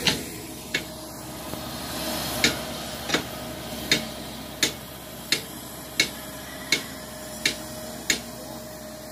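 Small crawler tractor working out in a flooded rice paddy, its engine a steady distant drone, with sharp clicks about every three-quarters of a second standing out as the loudest sound.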